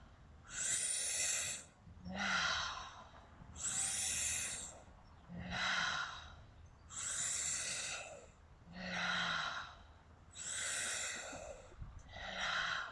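A woman breathing rhythmically and audibly through the mouth, as in a yogic breathing exercise: hissing inhales through lips rounded into a 'U' alternate with breathy sighing exhales that each begin with a short voiced note. There are about four full breaths, evenly paced.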